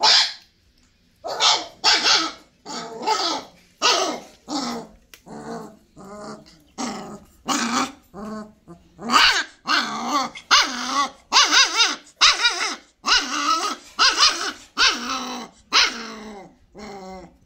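Kanni puppies growling and barking in play, a rapid string of short yaps and growls, about two a second.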